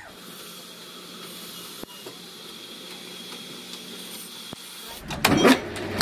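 Faint steady hiss and hum. About five seconds in, a sudden loud mechanical noise with repeated knocks starts as the sawmill's electric starter switch is worked.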